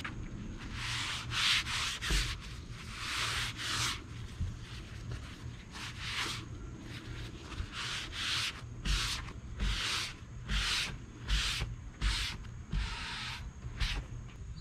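Cloth rubbing hazed glaze off a wooden furniture surface in repeated wiping strokes, slower at first and quicker in the second half.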